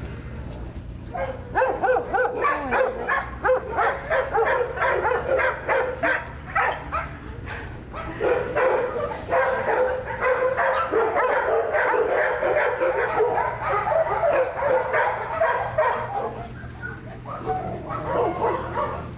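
Several dogs barking and yipping at once, a dense overlapping chorus that starts about a second in and thins out near the end.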